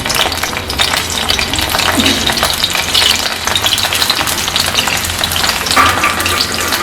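Masala sizzling in hot oil in a kadhai while a spoon stirs and scrapes it around the pan, over and over.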